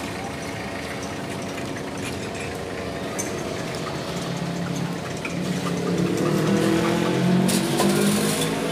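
A road vehicle's engine running nearby, growing louder from about four seconds in and peaking near the end, over a steady hum of street noise.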